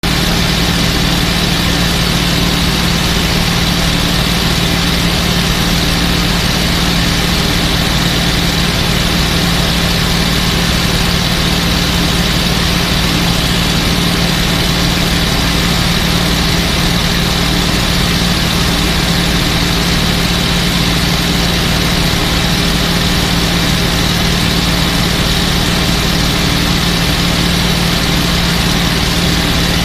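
P-51 Mustang's V-12 piston engine running steadily at constant power, heard from inside the cockpit over a steady rush of air.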